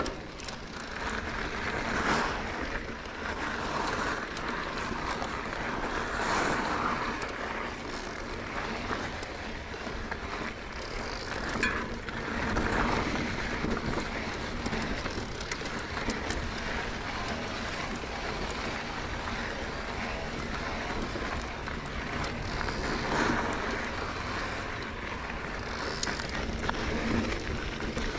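Mountain bike rolling over a rocky dirt trail: steady tyre noise with frequent small rattles and knocks from the bumps, and wind across the microphone.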